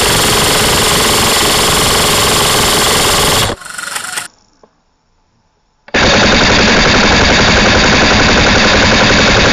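Airsoft rifle fire on full auto, a rapid continuous stream of shots, very loud and flattened at the top. The fire comes in two long strings: the first stops about three and a half seconds in, and after a short silence a second starts near the six-second mark.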